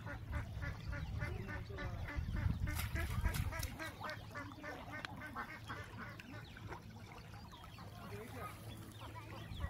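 Ducks quacking in a quick, rhythmic run that fades out after about six seconds, over a low rumble in the first few seconds.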